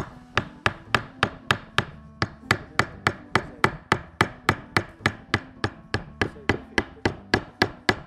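A carving chisel tapped steadily with a mallet, about three sharp knocks a second in an even rhythm, as its edge cuts down along a drawn line in a board.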